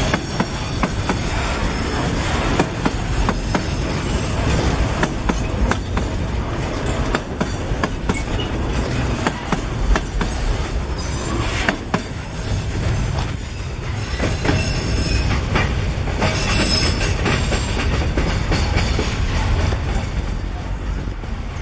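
Freight train of container-laden flatcars rolling past at close range: a steady low rumble with repeated clicks and clacks of wheels over the rail joints. Brief high-pitched wheel squeals come and go, the clearest about two-thirds of the way in.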